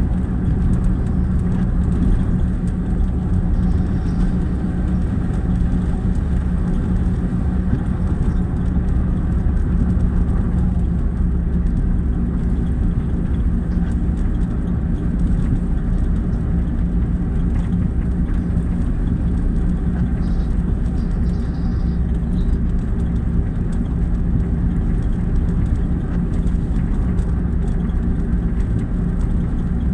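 An engine running steadily at one constant speed, a low even hum with no revving.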